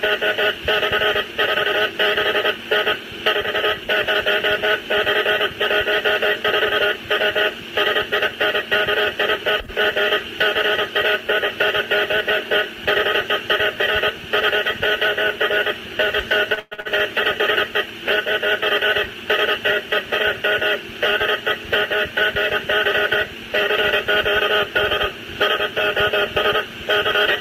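Morse code of the Titanic's wireless distress call, CQD and SOS under the call sign MGY, sent as a rapid, buzzy stream of dots and dashes with static beneath it. The keying runs without let-up apart from one brief break about two-thirds of the way through.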